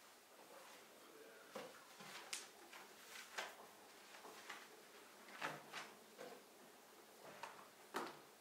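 Faint, scattered rustles and light knocks as a knitted tote bag is handled and small items are picked up from a wooden desk and packed into it, with the sharpest knock near the end.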